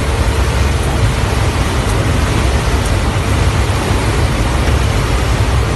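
Loud, steady engine and airflow noise inside the cabin of a military transport aircraft: a deep rumble with a hiss over it.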